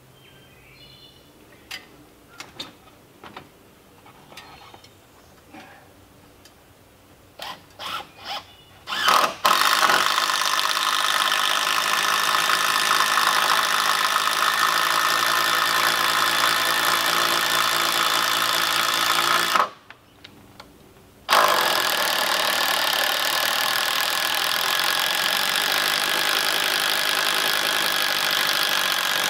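Electric drill boring into timber: a few light knocks and clicks, then the drill runs steadily for about ten seconds, stops for a moment, and runs again for about eight seconds.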